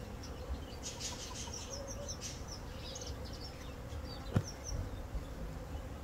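A bee's steady, faint buzz, with small birds chirping high and briefly in the background. A single sharp knock about four seconds in.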